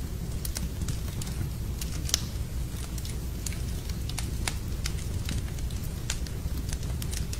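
Fire burning in a fireplace, crackling with sharp, irregular pops over a steady low rumble.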